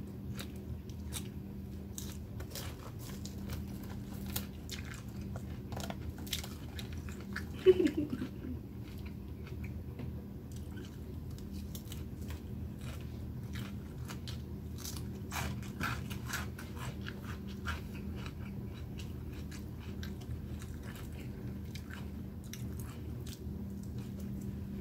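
Close-up chewing and crunching of a mouthful of leafy salad, with a fork clicking and scraping in a plastic clamshell container, over a steady low hum. A brief, louder sound that falls in pitch comes about eight seconds in.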